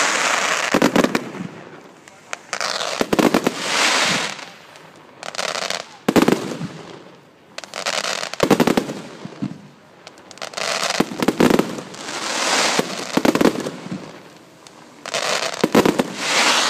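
Aerial fireworks shells bursting in a steady series of sharp bangs every second or two, each burst followed by a long, dense crackle of crackling stars.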